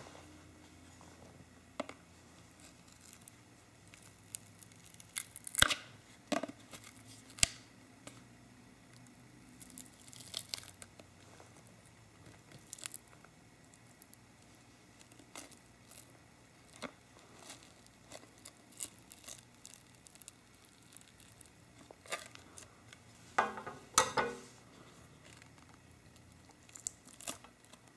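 Scattered clicks, scrapes and tearing as a JBL Go Bluetooth speaker is pried apart by hand: its glued-in grille comes out and the adhesive felt pad behind it is peeled back. The loudest tearing comes in a cluster about 23 seconds in.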